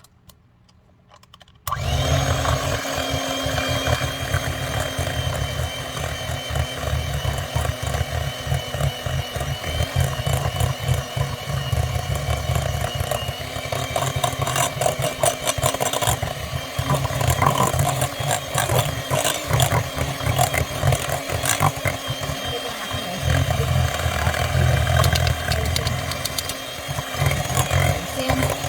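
Electric mixer switching on about two seconds in and running steadily, beating flour into banana bread batter.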